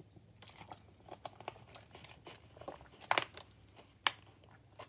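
Plastic packaging crinkling as it is handled, with scattered small clicks and a few sharper clicks about three seconds in and again about a second later.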